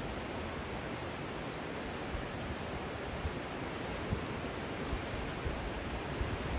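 Steady rushing of a river in heavy flood, the swollen, muddy Indus, with short low wind gusts buffeting the microphone now and then.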